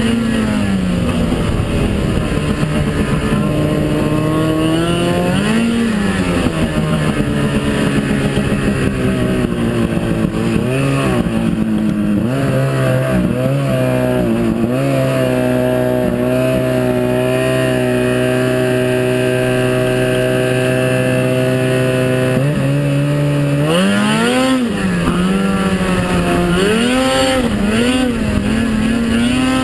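Snowmobile engine running, its pitch rising and falling with the throttle, holding steady for several seconds midway, then rising and falling again near the end.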